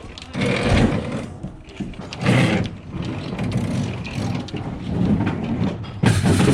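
A refrigerator being pushed along, scraping and knocking in several uneven bursts.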